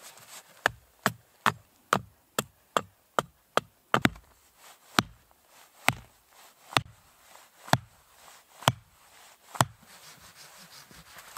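A hatchet driving a wooden tent stake into the ground with sharp knocks, about two or three a second at first and then about one a second, stopping near the end.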